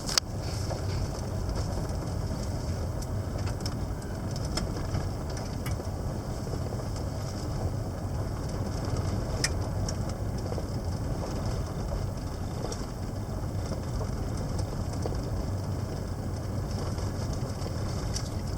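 Vehicle driving: a steady low rumble of engine and road noise, with a few faint ticks and rattles.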